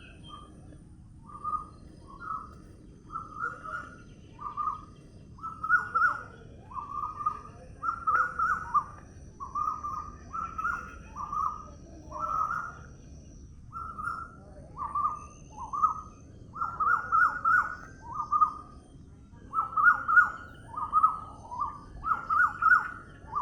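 A bird calling over and over: short, slightly falling notes, roughly one a second and at times in quick runs of two or three.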